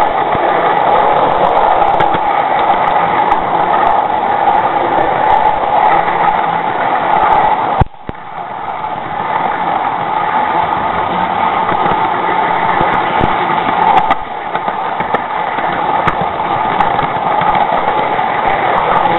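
O gauge model train running along garden railway track, heard from a camera riding on it: a steady mechanical running noise of motor, gearing and wheels on rail. About eight seconds in there is a sharp click, and the sound drops suddenly, then builds back up over a few seconds.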